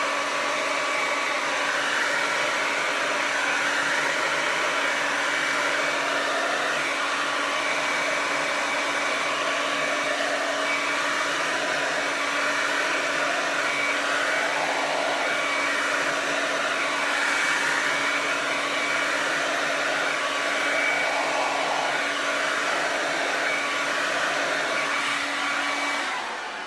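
Kiss 1875 tourmaline ceramic hair dryer running on its high setting: a steady rush of air with a constant low hum. The air sound wavers as the dryer is worked through the hair, and it gets quieter near the end.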